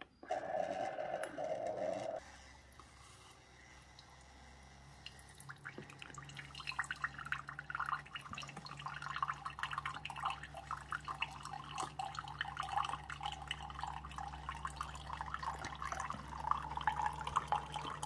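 Keurig K-Express Essentials single-serve coffee maker starting an 8-ounce brew through a reusable K-cup. A steady tone sounds for about two seconds, then the machine hums steadily. From about five seconds in, coffee streams and splashes into a glass mug.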